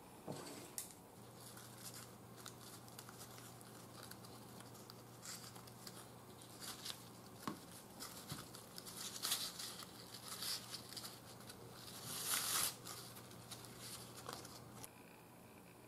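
Bamboo leaves rustling and crinkling as fingers untie raffia string and peel open steamed leaf-wrapped parcels. Faint, scattered rustles, loudest about nine and twelve seconds in, stopping shortly before the end.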